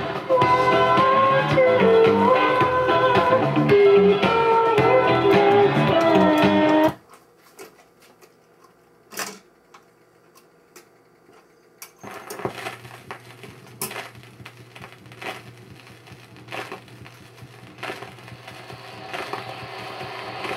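Vintage GE Trimline 500 record changer: guitar music from a 45 rpm single stops abruptly about a third of the way in. The changer then cycles and drops the next record with a sharp click. After the stylus sets down there is faint crackle and clicking of the lead-in groove over a low hum, until the music starts again at the very end.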